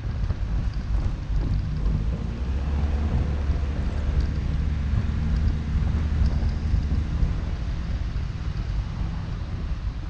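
Car driving on a paved residential road: low rumble of engine and tyres with wind noise on the microphone, easing off in the last few seconds as the car slows for a stop sign.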